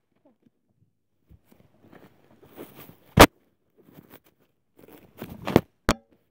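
Handling noise from a phone camera being moved about: scattered rustles and sharp knocks against the microphone, the loudest about three seconds in, with a cluster of them near the end.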